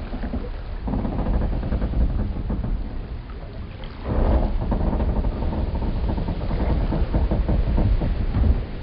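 Harbour ambience of creaking, groaning wooden boats and piers with water lapping, a dense crackly low texture that grows louder about four seconds in and eases just before the end.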